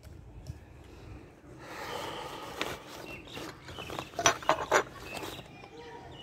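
Cat crunching dry kibble, a few sharp crunches about four seconds in and a scattering of fainter ones. A soft rushing noise comes in around two seconds in.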